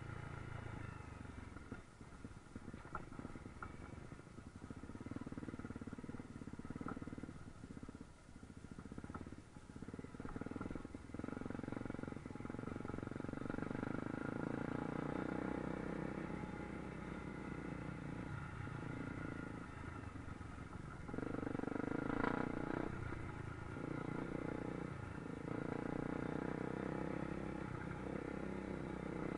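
Honda trail motorcycle's engine running under a rider on a dirt trail, with wind noise and rumble underneath. Its note fades and comes back again and again as the throttle is eased off and opened, and there is a sharp knock about 22 seconds in.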